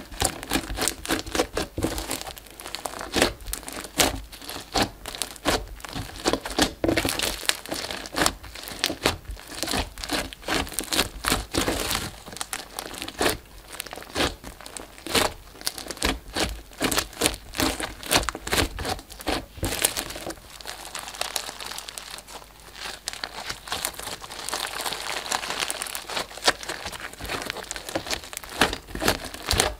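Glossy slime packed with foam beads and clay charms being pressed and kneaded by hand, giving a rapid run of sticky clicks, pops and crackles. In the last third the clicks thin out into a denser, finer crackle.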